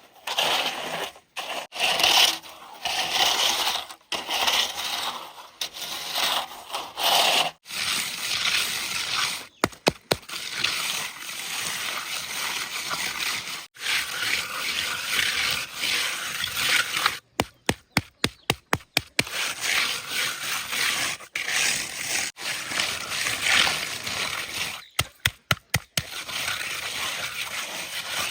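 Scraping and sloshing of wet cement being worked by hand, broken by many abrupt short gaps.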